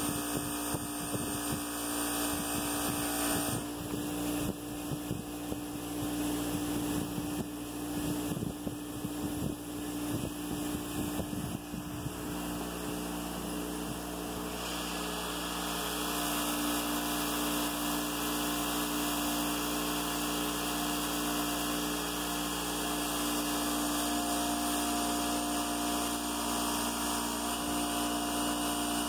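Bench grinder fitted with a buffing wheel running with a steady motor hum, while an engine valve spun in a cordless drill is pressed against the wheel to polish carbon off it. The grinding is uneven for the first twelve seconds or so, then steadier.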